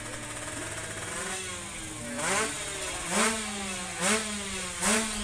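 Two-stroke drag bike engine revved in four sharp throttle blips less than a second apart in the second half, each rising fast in pitch and dropping back. Other engines drone steadily underneath.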